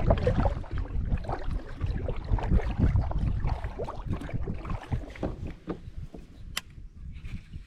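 A kayak being paddled: irregular splashing and low knocks against the hull, thinning out near the end.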